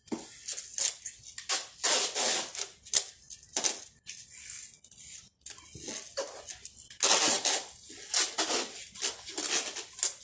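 Brown packing tape being pulled off the roll in repeated rasping strips and pressed onto a plastic-wrapped cardboard box, the longest and loudest pull about seven seconds in.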